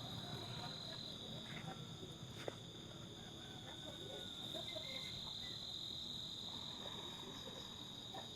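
Faint insects trilling in one steady high-pitched note, with a small click about two and a half seconds in.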